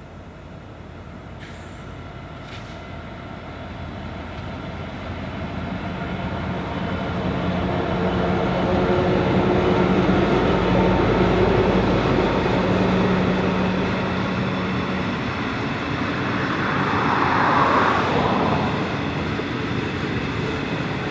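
Narrow-gauge diesel-electric locomotives working at full throttle up a long grade as they approach and pass, the engine noise growing to its loudest about halfway through. It eases slightly and then rises again briefly near the end.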